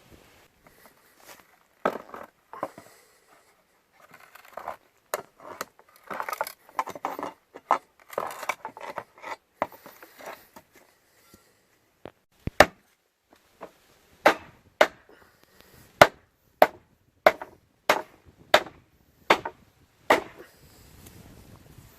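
Hammer and pry bar working on a wooden pallet: scattered knocks and rough scraping of wood being levered loose, then from about halfway a run of a dozen or so sharp hammer blows, a little over half a second apart, knocking the pallet boards and blocks loose.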